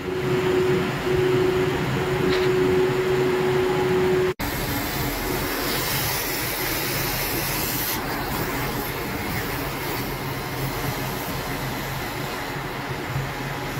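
Heavy machinery running steadily with a constant hum, the engine and hydraulics of a truck-mounted crane holding a steel stack. After a sudden break about four seconds in, a hissing grinding noise joins the machine noise for a few seconds, an angle grinder cutting steel, then steady machine noise goes on.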